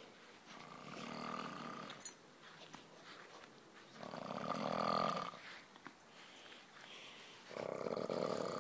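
A man snoring heavily in his sleep: three long snores a few seconds apart, each rising and fading over about a second and a half. A brief sharp click falls about two seconds in.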